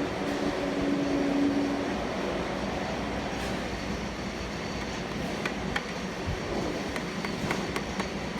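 Steady mechanical rumble and hum, with a louder held tone in roughly the first two seconds. Scattered light clicks and taps come in the second half, like metal parts being handled.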